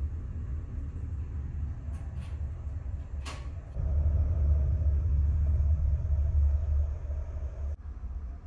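Steady low rumble of a ferry's engines heard inside the ship, louder for a few seconds in the middle, with a few light clicks about two and three seconds in.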